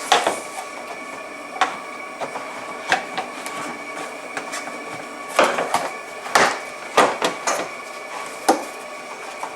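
Plastic trim clips and screws being pressed and screwed back into a car dashboard, with scattered sharp clicks and knocks that cluster about two-thirds of the way through. A faint steady high whine runs underneath.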